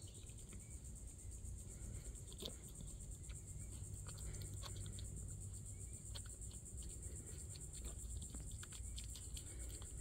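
Steady, high-pitched chorus of summer insects, a fast pulsing buzz. Scattered small clicks and crunches come from a white-tailed deer chewing grapes held out by hand.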